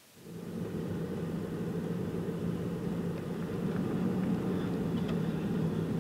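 A vehicle's engine and road noise heard from inside the cab while driving: a steady low drone with a hum.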